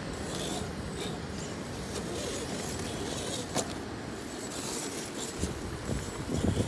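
Radio-controlled rock crawler's brushed electric motor and drivetrain whining at low, varying throttle as the truck climbs over rock, with a single sharp click a little past halfway.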